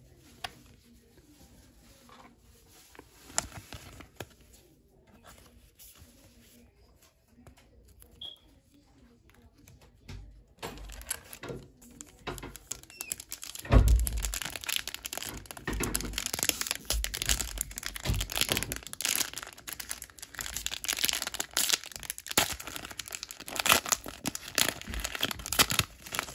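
Foil Pokémon card booster pack crinkling and being torn open by hand, with a thump about halfway through, after a quieter stretch of light clicks from card handling.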